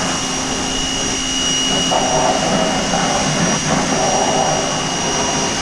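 Pressure washer running steadily, with a constant high whine over a low hum, while the water jet is being sprayed.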